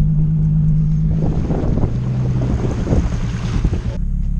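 Nissan 350Z's V6 engine running steadily while driving, its pitch dropping slightly about two seconds in. From about a second in, wind buffets the microphone through an open window, and the gusting stops abruptly near the end.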